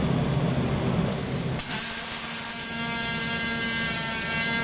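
A steady rumble of machinery gives way, about a second and a half in, to a robotic MIG welding torch's arc: once the arc strikes it settles into a steady, even buzz.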